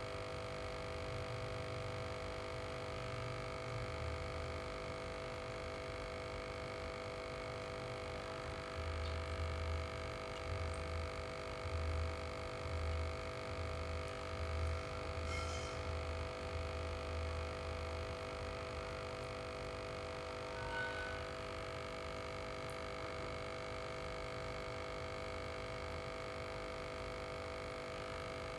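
Aquarium air pump humming steadily through airline tubing, a constant electric buzz of several steady tones. A few low bumps come in the middle.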